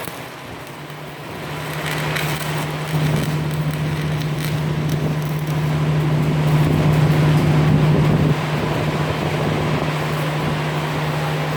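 A steady machine hum: a low drone at one pitch over a hiss, growing louder about three seconds in.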